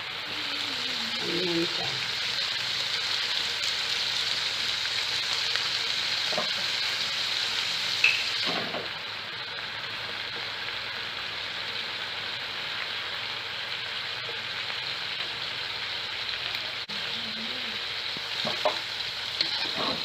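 Chicken sizzling in hot oil in a pan, a steady frying hiss with a few knocks of a utensil against the pan. A little after eight seconds in, the sizzle turns slightly quieter and duller.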